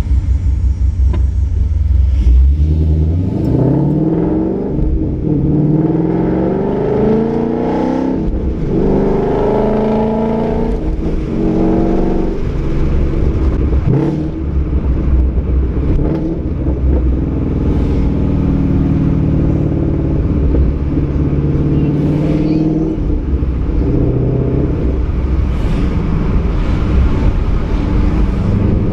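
Ford Mustang 5.0's Coyote V8 through a Roush axle-back exhaust with an off-road X-pipe, pulling up through the gears several times: the note rises, drops at each shift, then holds steadier at cruise for a while. A few sharp exhaust pops and cracks come between the pulls.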